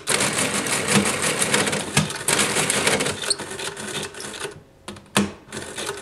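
Monroe L-series adding machines, one electric and one hand-cranked, working a long multiplication: a dense, rapid mechanical clatter of gears, registers and carriage shifts. It stops briefly near the end, followed by a single sharp clack and quieter clatter.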